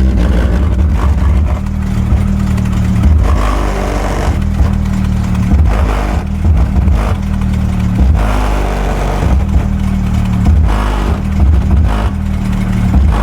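Car subwoofer playing bass-heavy music loudly, almost all deep bass notes changing in a steady beat, with the midrange speakers disconnected.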